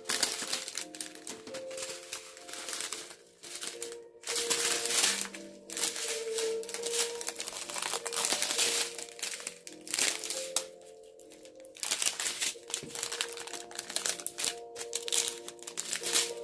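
Plastic bags of diamond-painting drills crinkling as they are handled and sorted through, over soft background music.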